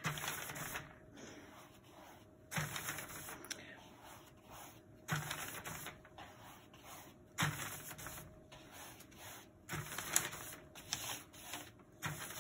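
A flat synthetic brush's bristles swept across paper again and again, a swish about every two and a half seconds with light ticks between, as excess varnish is wiped off the brush.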